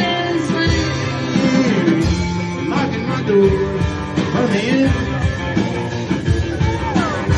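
Live band music in a country-rock style, loud and continuous, with guitar and gliding pitched lines that may be a sung note or bent guitar strings.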